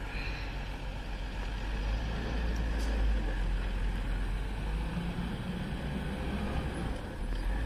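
Old diesel goods truck's engine running under load with a low, steady rumble as it struggles to climb a ramp; the uploader suspects a worn clutch plate.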